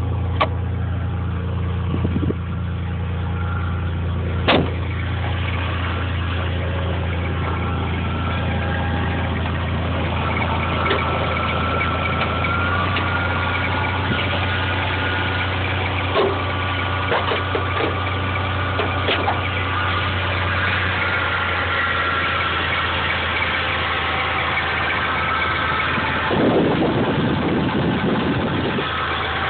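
Toyota Tacoma's 3.4-litre V6 idling steadily. A few sharp clicks come in the first seconds, and there is a brief rush of noise near the end.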